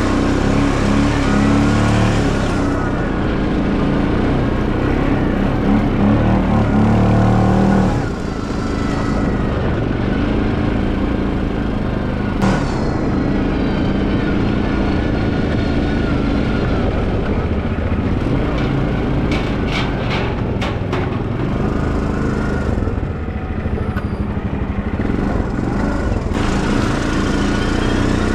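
Small tractor's engine running steadily on the move, its note dropping slightly about eight seconds in, with a few light clicks later on.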